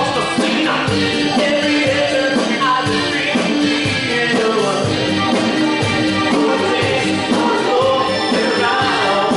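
Live band playing an upbeat Motown song, with singing over it.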